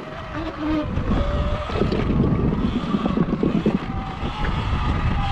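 Electric dirt bike riding a dirt single-track: a thin motor whine that rises and falls with speed, over wind buffeting the microphone and the rumble of tyres on dirt.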